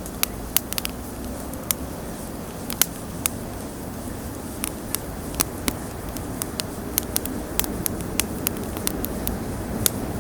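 Wood bonfire crackling: sharp, irregular pops, sometimes several in quick succession, over a steady low rush.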